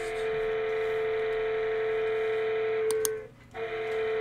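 A steady electronic buzzer tone of one unchanging pitch. It cuts out briefly a little after three seconds in, just after a couple of sharp clicks, then starts again.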